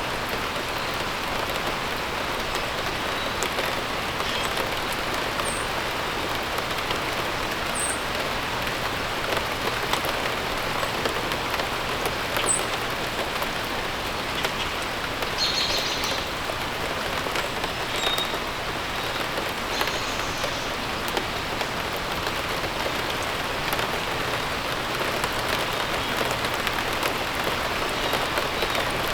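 Steady rain falling, with a few brief, high bird chirps now and then.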